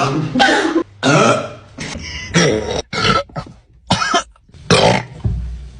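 A person burping again and again after gulping carbonated soda: about eight short, loud belches in quick succession.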